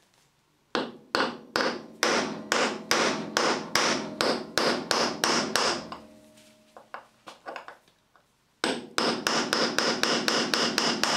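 Hammer striking a cold chisel against a stripped screw head in a metal plate, knocking the screw round to loosen it. Quick runs of sharp metallic blows come several a second, with the struck metal ringing. The blows fade to lighter taps about six seconds in, pause, then start again fast near the end.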